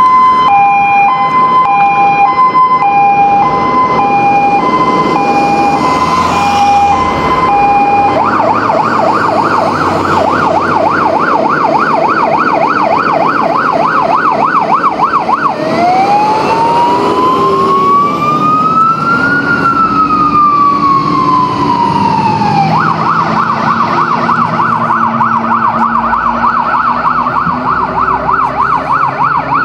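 Fire engine siren, a Scania P380 heavy fire tender, sounding on an emergency run and switching patterns. For about the first eight seconds it alternates between two notes (hi-lo), then it changes to a fast warbling yelp. Around the middle it makes one slow rising-and-falling wail, and from about 23 seconds in it returns to the fast yelp.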